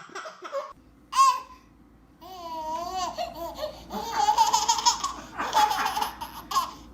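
A baby laughing and squealing in short bursts, with a wavering, drawn-out squeal a little over two seconds in.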